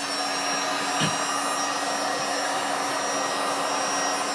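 Heavy-duty construction heat gun blowing hot air steadily, with a constant hum from its fan motor, as it softens the adhesive on a phone's glass back.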